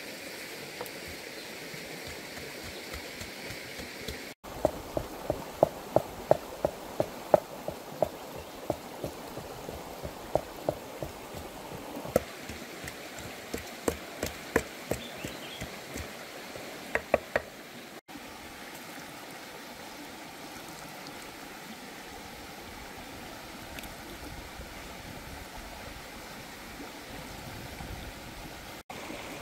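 A run of sharp knocks, about two a second and several seconds long, over a steady outdoor hiss; the knocks stop partway through, leaving only the hiss.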